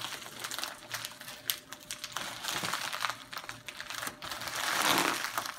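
Plastic mailer bag crinkling and crackling in quick small clicks as fingers pick and tug at its sealed tab, with a louder rustle near the end.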